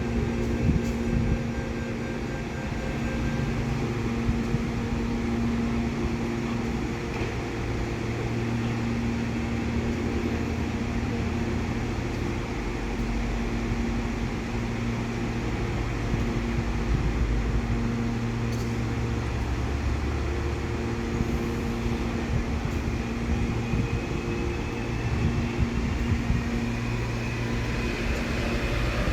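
Electric commuter train at a station platform, a steady low hum and rumble with tones that cut in and out every few seconds. A faint rising whine enters near the end.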